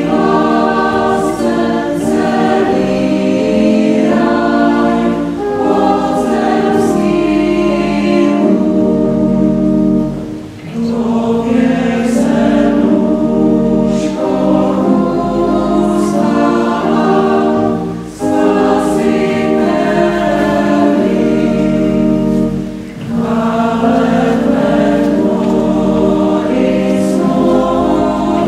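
A choir of adults and children singing together in long held phrases, with three short breaks between phrases.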